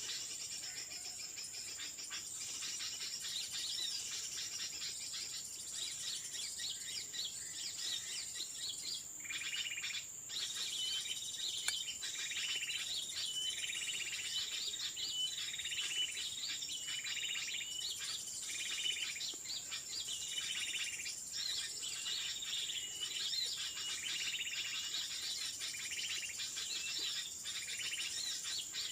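Birds chirping in short repeated phrases, coming every second or so from about nine seconds in, over a steady high-pitched insect drone.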